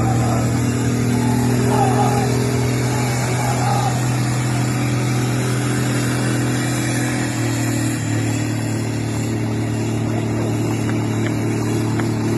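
Tank engine running steadily as the tank drives up out of the water onto the bank, a low droning note that steps down to a slightly lower steady pitch about eight seconds in.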